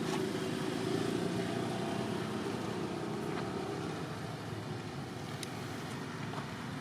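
A steady low engine hum from a vehicle, easing slightly over the last few seconds.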